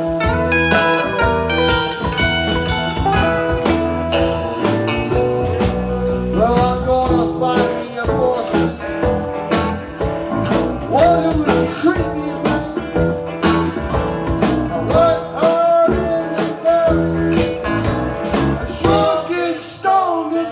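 A band playing a blues number: drums keeping a steady beat under bass and guitar, with a bending lead melody line coming in about six seconds in.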